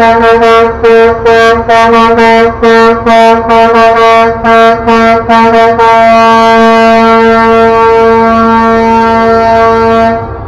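A truck's air horn sounding one note, very loud: a rapid string of short blasts, about three a second, for some six seconds, then one long held blast of about four seconds that cuts off suddenly near the end.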